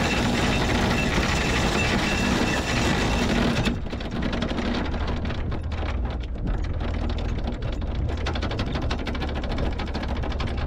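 Anchor windlass paying out anchor chain over the bow roller, a loud rattling run with a steady whine in it that stops abruptly a few seconds in. After that the boat's engine runs low with scattered light clicks.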